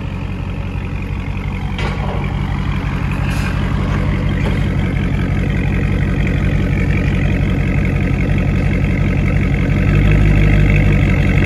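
Dodge Charger Scat Pack's 6.4-litre (392) HEMI V8 idling through an exhaust with Dynomax Race Bullets in place of the mid mufflers, heard from behind the tailpipes: a steady, deep exhaust burble that grows louder and deeper about ten seconds in.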